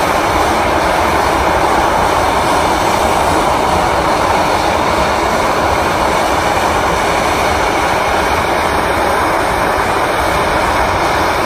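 Steam locomotive venting a long jet of steam sideways, typical of a boiler blowdown: a loud, steady hiss that stops abruptly near the end.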